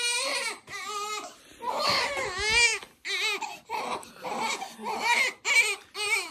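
A two-month-old baby crying hard in short, repeated high wails, about two a second.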